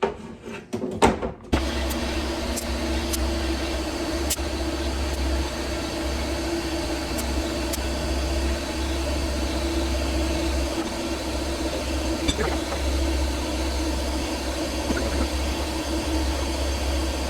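Shop air filling a lawn tractor tire through an air chuck: a few clicks and knocks as the chuck is fitted, then about a second and a half in a steady hum with hiss as the air compressor runs and air flows into the tire.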